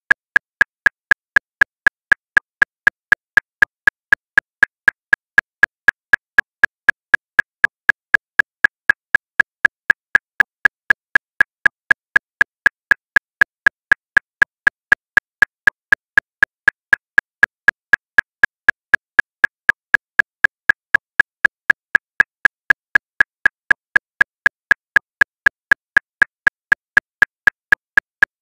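Metronome clicking steadily at 239 beats per minute: short, even, fairly high-pitched clicks about four a second, all at the same loudness.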